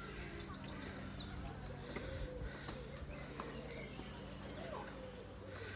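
Faint songbird calls: scattered high chirps and a quick high trill about one and a half seconds in.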